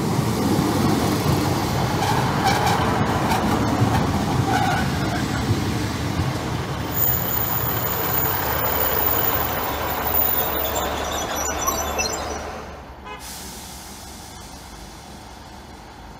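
Class 153 diesel railcar pulling into a station platform: a loud rumble of wheels and underfloor diesel engine, with high brake squeals from about seven seconds in as it slows. Near thirteen seconds the sound drops away to the quieter running of the stopped train.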